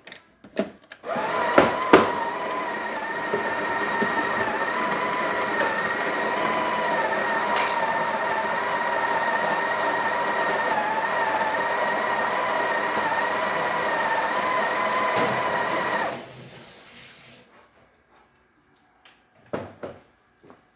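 Breville Barista Express's newly fitted built-in burr grinder running steadily with a slightly wavering motor whine as it grinds coffee into the portafilter on the fifth grind setting. It stops about sixteen seconds in.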